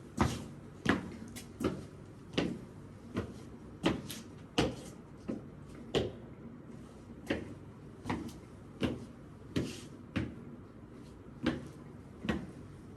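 A series of short knocks or thuds at an uneven pace, roughly one to two a second, each ringing briefly.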